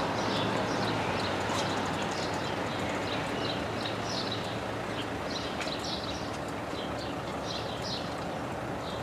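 Small birds chirping again and again in short, high calls over a steady low hum and a broad rumble that slowly fades a little.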